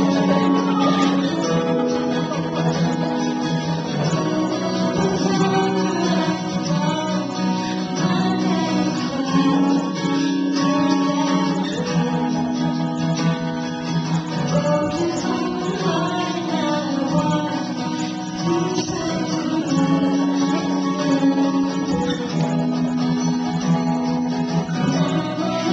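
A young woman singing solo into a microphone over a guitar accompaniment, her voice carrying a melody above sustained chords.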